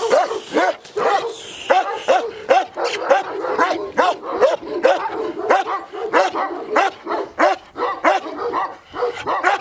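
Large white shepherd dog barking repeatedly in a rapid, steady series of about two to three barks a second.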